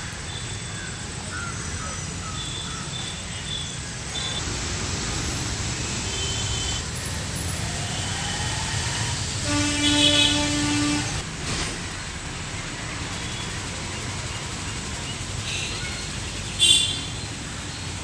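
Steady low background hum of traffic with faint high chirps. About ten seconds in, a vehicle horn sounds once for about a second and a half. Near the end comes a short, sharp high sound.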